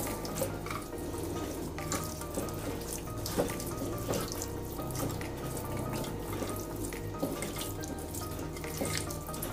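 Wet squelching and slapping of hands massaging raw chicken thighs slick with olive oil and spices, a run of small irregular squishes, with soft background music underneath.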